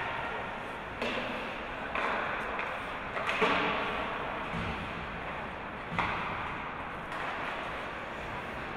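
Ice hockey play in a rink: a few sharp knocks of stick and puck against the boards, the loudest about three and a half seconds in, over steady rink noise.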